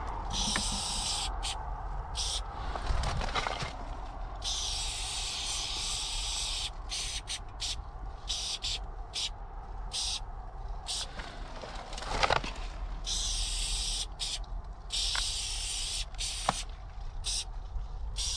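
Aerosol spray-paint can hissing in bursts, some short taps and some held for a couple of seconds, as black outline paint is sprayed. A few sharp clicks fall between the sprays.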